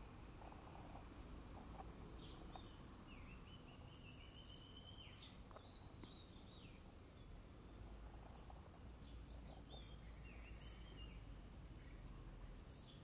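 Faint bird calls: scattered short chirps and whistles, some sliding in pitch, over a steady low background hum.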